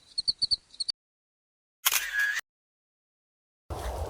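Night insects chirping in a quick high pulse with a few faint clicks, cut off abruptly about a second in. A brief sharp burst follows around two seconds in. Near the end a flock of ducks starts up, a busy quacking din.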